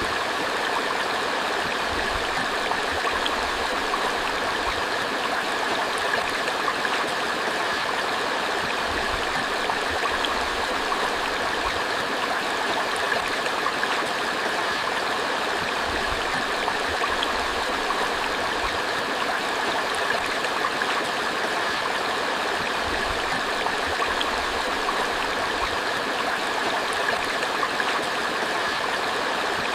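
Creek water flowing steadily: a smoothed, constant rush with no breaks or swells.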